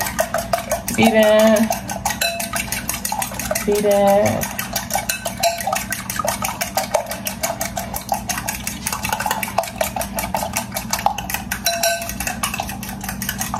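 Eggs being beaten with a fork in a glass bowl: the fork clicks against the glass over and over in a fast, even rhythm.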